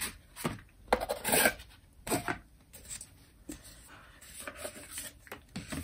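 Foam and cardboard packaging inserts rubbing and scraping as they are pulled out of a cardboard tube box, in several short bursts, with a knock about three and a half seconds in as a piece is set down.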